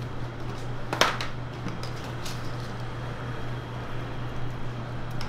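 Steady low machine hum of kitchen equipment, with one sharp click about a second in and a few fainter ticks after it.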